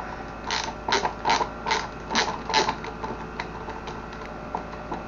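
Creaking, scraping strokes from hand work on an orbit fan's motor and housing: about six quick strokes, two or three a second, in the first half, then a few fainter ones near the end, over a steady low hum.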